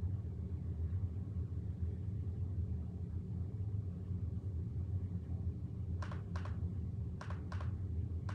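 Steady low hum, with a few short, sharp clicks in pairs near the end.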